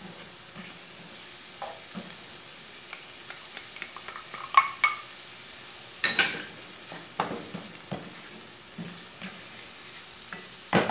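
Chopped cilantro, tomato, onion and garlic sizzling in bacon fat in a nonstick frying pan while being stirred with a spatula, which scrapes and knocks against the pan at irregular moments; the loudest knocks come about four and a half and six seconds in.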